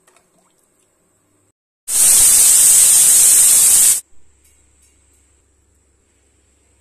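A loud, steady hiss lasting about two seconds, which starts and cuts off abruptly.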